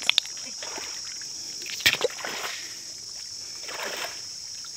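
Water sloshing and splashing around a person wading waist-deep through a muddy tidal creek, a surge with each stride about every second and a half. There are a couple of sharp splashes near the start and another about two seconds in.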